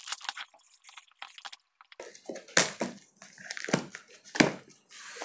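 Packing tape and a plastic bill pouch being cut with scissors and torn off a cardboard parcel: soft snips and ticks at first, then, from about two seconds in, louder crackling rips and crinkling.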